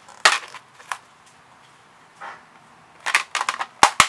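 Plastic PS3 game case being handled: a few sharp clicks and taps, a soft slide about two seconds in, then a quick run of clicks and taps near the end as the case is laid flat on a concrete floor.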